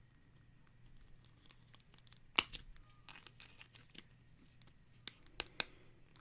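Plastic action-figure parts being handled and fitted together: faint rustling with scattered small clicks, a sharp click about two and a half seconds in and a few more near the end.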